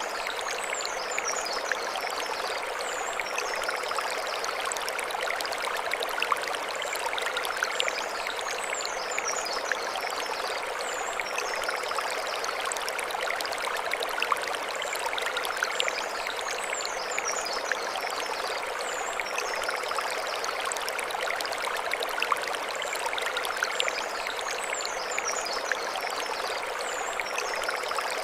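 Mountain stream flowing over stones: a steady rushing, babbling flow, with brief high chirping figures recurring every few seconds above it.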